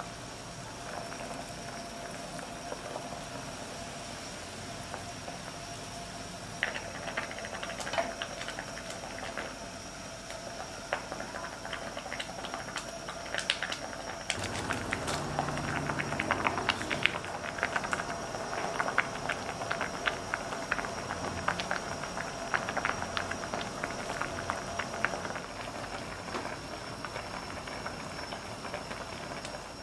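Pot of tteokbokki broth at a rolling boil, bubbling steadily. About a quarter of the way in, irregular clicks, taps and splashes begin as a wooden spatula stirs in the pot, busiest through the middle.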